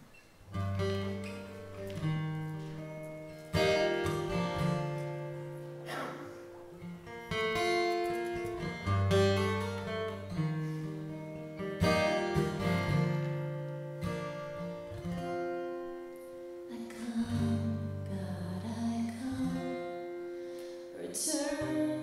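Live acoustic guitar strumming chords over low held notes, the instrumental introduction of a worship song; a woman's voice comes in singing near the end.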